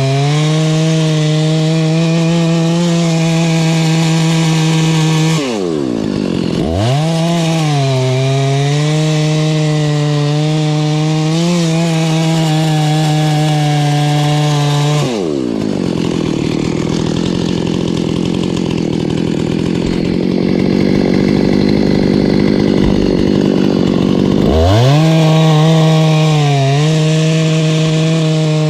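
Husqvarna 288XP two-stroke chainsaw running at high revs, its pitch sagging slightly under load as it cuts wood. About five seconds in the revs drop and quickly pick up again; around the middle the throttle is let off and it idles unevenly for about nine seconds, then revs back up near the end.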